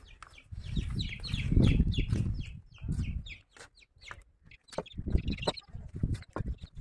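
Domestic fowl clucking, with a low rumble on the microphone in the first half. Sharp clacks and knocks in the second half, as bricks are lifted and handled.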